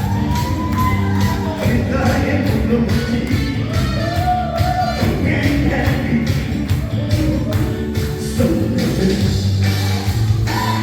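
Music with a sung vocal melody over a steady drum beat and bass.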